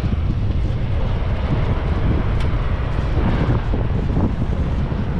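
A four-wheel-drive vehicle driving along a dirt track: steady road and tyre rumble under heavy wind buffeting on an outside-mounted microphone. There is a single sharp tick about halfway through.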